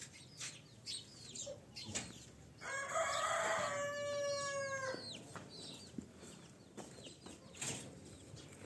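A rooster crows once: a long call starting about three seconds in and lasting about two seconds, falling at its end. Around it are short scattered clucks and cheeps of hens and chicks.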